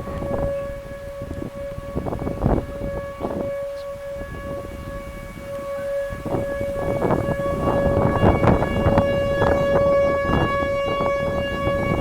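Outdoor civil defense tornado siren sounding a steady, unwavering tone, growing louder and fuller about seven seconds in, with rough gusts of noise over it.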